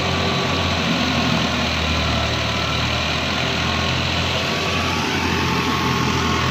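Heavy farm-machinery diesel engine running steadily at a low, even speed.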